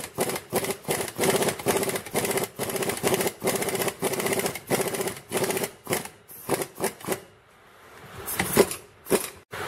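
Ratchet wrench clicking rapidly, about four or five clicks a second, as it turns the screw of a C-clamp style U-joint press to force a bearing cap into the drive-axle yoke. The clicking dies away about seven seconds in, and a couple of sharper clicks follow near the end.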